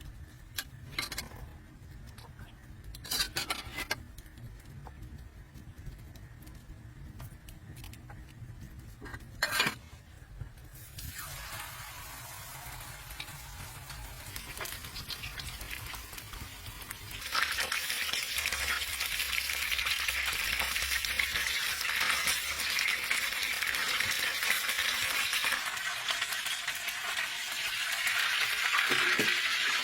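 A few knocks of utensils on cookware, then food starts sizzling in a hot pan about eleven seconds in. The sizzle gets louder and steady about six seconds later.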